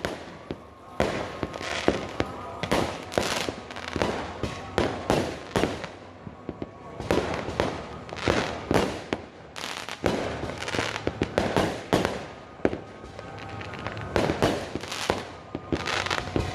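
Many aerial fireworks bursting in quick succession, with sharp overlapping bangs and crackling several times a second and no break.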